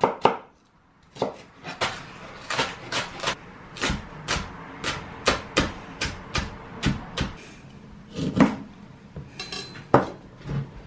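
Kitchen knife chopping on a cutting board: a run of sharp strikes at about two or three a second, after a brief silence near the start.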